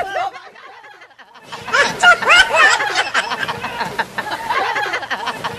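People laughing and shouting excitedly, with a brief quieter lull about a second in.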